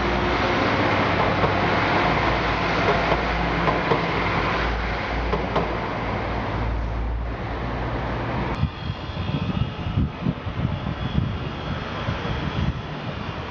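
Class 172 diesel multiple unit running away along the track, a steady low engine drone with wheel and rail noise, easing off after about seven seconds. About eight and a half seconds in the sound cuts sharply to gusty wind buffeting the microphone.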